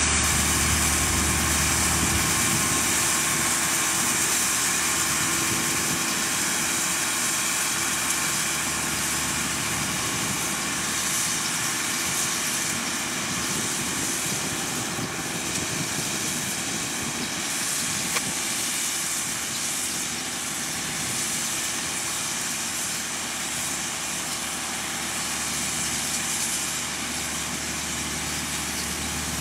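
Tractor engine running steadily under load while it pulls and drives a small round straw baler, the machinery making a continuous hissing mechanical noise.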